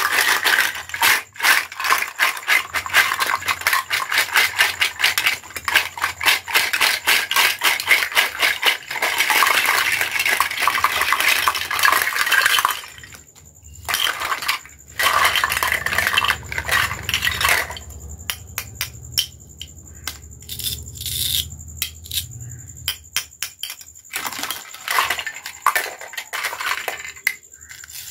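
Hollow plastic toy fruit and vegetable pieces rattling and clattering together in a plastic basket and spilling out onto a mat, a dense clatter for about the first half. After that, sparser separate plastic clicks and knocks as single pieces are picked up and handled.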